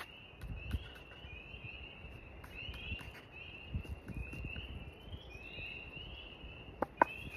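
A steady outdoor chorus of short, rising, high-pitched animal peeps, two or three a second, with soft footsteps beneath and two sharp clicks near the end.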